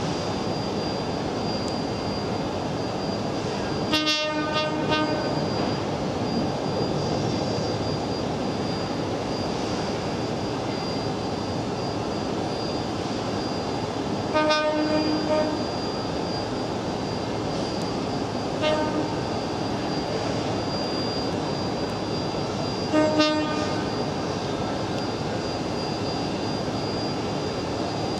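A train horn blows four single-pitched blasts, the first the longest and the third brief, over the steady noise of trains standing at a station, with a high steady whine throughout.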